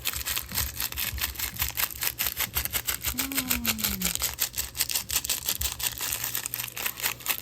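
Clear slime being squeezed and worked by hand, giving a fast run of sharp clicks and crackles. A short falling hum from a child comes about three seconds in.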